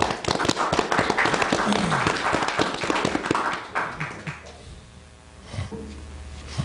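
A small audience clapping in a meeting room, dense hand claps that die away about four to five seconds in.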